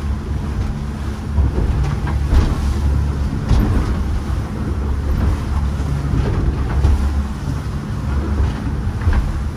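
Small catamaran under way in a chop: a steady low motor drone mixed with wind buffeting the microphone, with water splashing against the hulls now and then.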